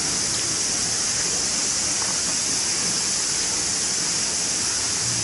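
A steady high-pitched hiss that holds at one level throughout, with no clear events in it.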